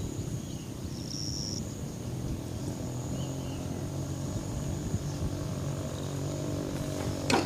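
A low, steady engine hum that grows stronger a few seconds in, with a short high-pitched tone about a second in and a sharp click near the end.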